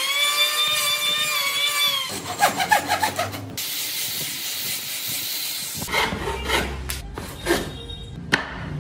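Angle grinder fitted with a sanding pad, working on wood: a steady motor whine for about two seconds, then a hissing grind as the pad sands the wood. Scattered rubbing and knocks follow in the last few seconds.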